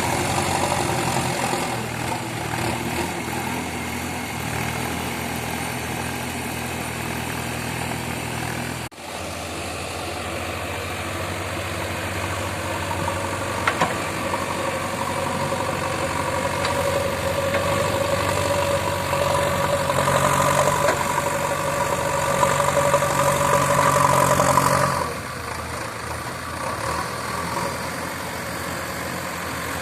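Diesel engine of a working JCB digger running steadily, with a brief drop-out about nine seconds in. Its note strengthens from about the middle as the machine takes load, then falls back sharply near twenty-five seconds.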